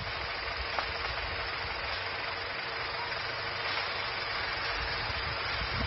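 Engine of a wheel-type sugarcane loader running steadily, under a constant hiss, with a faint steady whine.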